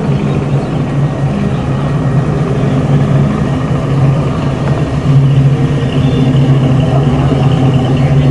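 Car engine running steadily at low revs, growing a little louder about five seconds in.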